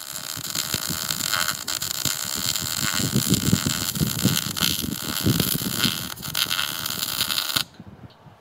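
Electric arc welder running a weld on a steel angle-iron bracket: a dense, steady hiss that breaks off briefly near the start and cuts off suddenly about a second before the end.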